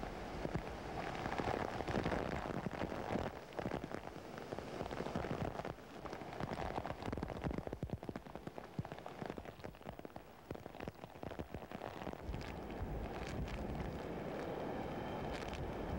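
Hurricane wind and heavy rain: rain pelting down with many small spattering hits while the wind gusts, swelling and easing every few seconds.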